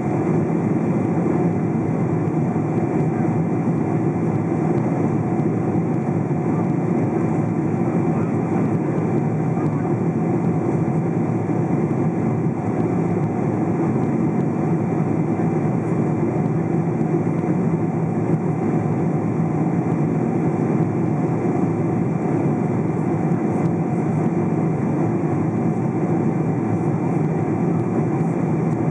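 Steady cabin noise inside a Boeing 777-200 airliner in flight: an even, low drone of jet engines and rushing airflow that holds constant throughout, with a few faint steady tones above it.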